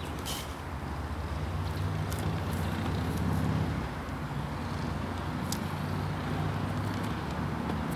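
A motor vehicle's engine running steadily, with a low hum that swells a little about three seconds in. A few faint short clicks sound over it.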